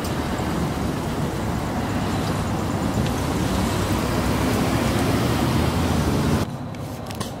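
Steady street traffic noise with a heavy low rumble, dropping suddenly to a quieter level about six and a half seconds in.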